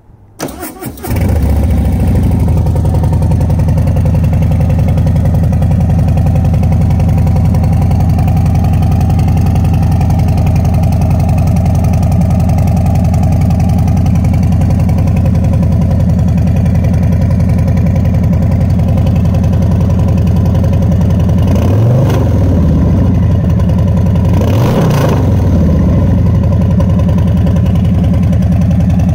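2019 Harley-Davidson Fat Boy's Milwaukee-Eight 114 V-twin, breathing through a Two Brothers (TBR) 2-into-1 exhaust, being started: a brief crank, then it catches about a second in and settles into a steady idle. In the second half the throttle is blipped twice, a few seconds apart, each time briefly rising in pitch and falling back to idle. The engine is new and still being broken in.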